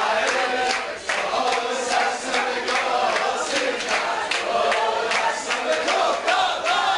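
A crowd of men singing a song together in unison, with hand clapping along to the beat.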